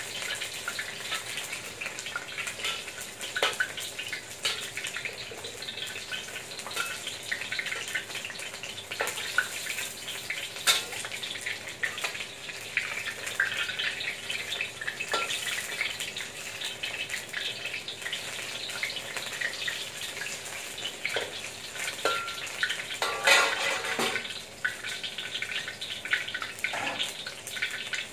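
Batter-coated enoki mushrooms frying in shallow oil in a stainless steel wok: a steady crackling sizzle, broken by sharp clicks and scrapes of a metal spoon and spatula against the wok as the pieces are turned. A louder burst comes about three-quarters of the way through.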